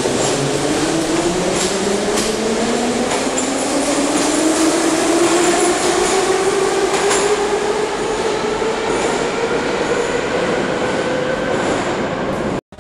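Moscow Metro train pulling out of the station. Its motors whine steadily higher in pitch as it gathers speed over the running noise of the wheels, with a few sharp clicks. The sound cuts out abruptly just before the end.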